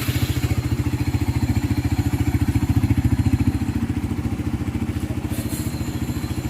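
Suzuki GSX-R150 single-cylinder engine idling steadily with an even beat just after start-up. It was freshly rebuilt with a new crankshaft bearing, and the earlier bearing noise is gone.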